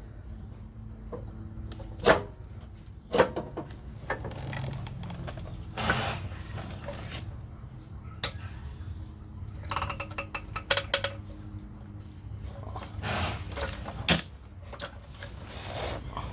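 Metal tools and parts clinking and knocking during work on a van's engine mount, with a handful of sharp knocks spread several seconds apart and quieter handling sounds between.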